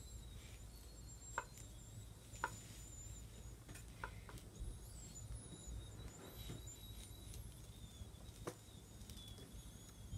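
Faint, scattered small clicks and taps as puppets are handled on a tabletop set, over quiet room tone.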